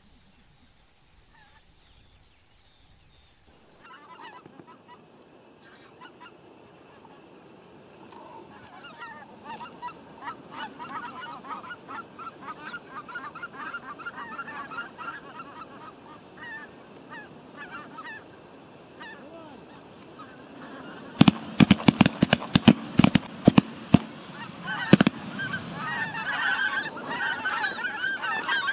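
A flock of geese honking, the calls growing louder and denser as they come in. About two-thirds of the way through, a rapid volley of about ten shotgun shots goes off over some three seconds, with one more shot just after, and the geese keep honking.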